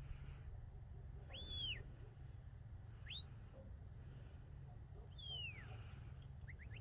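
A stockdog handler's whistled commands to working border collies: a rising-then-falling whistle, a short rising whistle, a long falling whistle, then three quick short pips near the end, over a low steady rumble.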